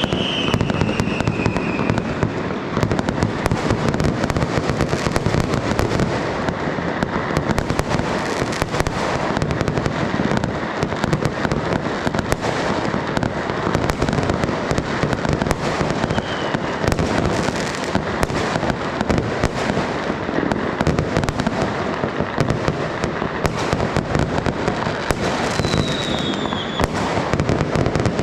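Dense, unbroken barrage of fireworks and firecrackers going off, rapid overlapping bangs and crackles. A few falling whistles cut through: one at the start, a short one about halfway, and another near the end.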